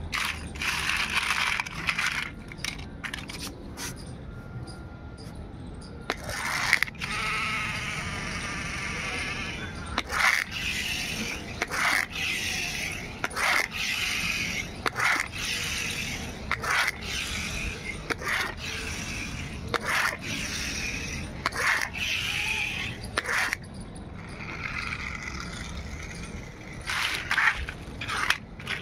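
Plastic toy cars clicking and clattering against each other and the concrete as they are picked up and handled, with a few stretches of steady whirring from a toy car's geared wheels.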